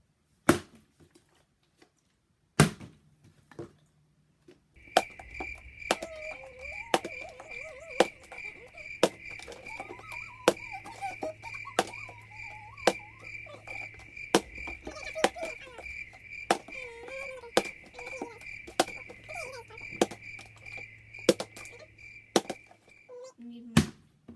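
Crickets chirping in an even, pulsing rhythm, starting about five seconds in and stopping shortly before the end. A few sharp knocks come before and after the chirping.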